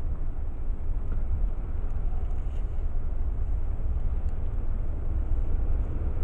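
Steady low rumble of a passenger train running past.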